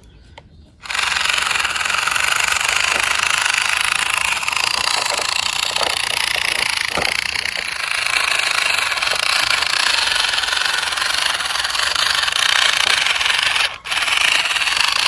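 Loud, steady mechanical rattling noise, starting about a second in and cutting out briefly near the end.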